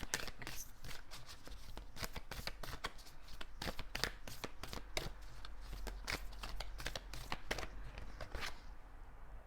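Oracle cards being shuffled by hand: a quick, irregular run of card clicks and rustles that thins out near the end.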